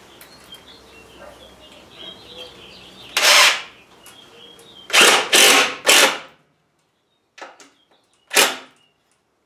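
Cordless drill driving drywall screws into pallet-wood boards in several short bursts: one about three seconds in, three in quick succession around five to six seconds, and a couple of brief ones near the end.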